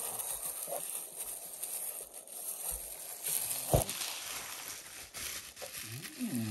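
Plastic bubble wrap and packing material rustling and crinkling as a wrapped clock is pulled out of its box. One sharp knock comes a little under four seconds in, and a brief pitched sound rises and holds near the end.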